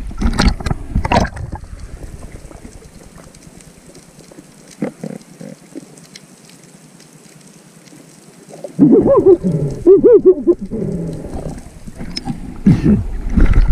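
Water splashing and gurgling around a diver's waterproof action camera: splashes at the surface at first, then a muffled hush underwater with a few faint knocks, and about nine seconds in loud bubbling and sloshing as it nears the surface again.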